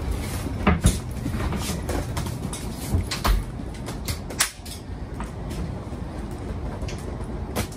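Folding bicycle being unfolded by hand: irregular metal clicks and clunks from its frame and handlebar stem hinges and latches as the parts swing into place, the loudest knocks a little under a second in and at about three seconds, over a steady low background noise.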